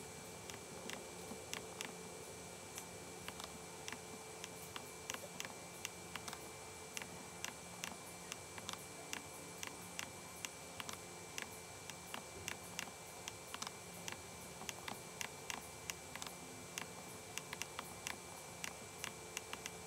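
Computer mouse clicking many times at an irregular pace, sometimes several clicks a second, over a faint steady hiss.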